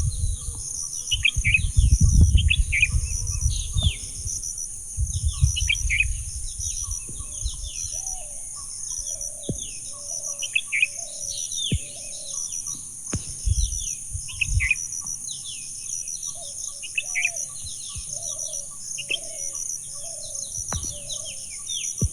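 Birds chirping with many short, downward-sweeping calls over a steady high insect drone. Low gusts of wind rumble through the first few seconds and again briefly about halfway through.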